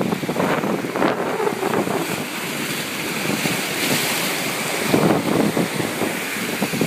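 Sea surf surging and washing over a rocky reef shelf, the foaming water hissing, with a swell of wash about four seconds in. Wind buffets the microphone in gusts.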